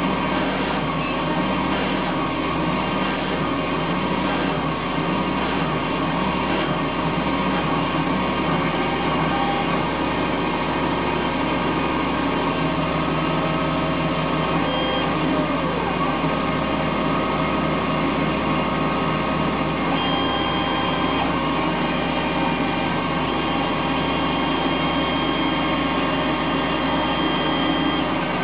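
Emco Turn 120 benchtop CNC lathe running: a steady mechanical whine of its motors with several held tones, and a brief shift in pitch about halfway through as the machine changes speed.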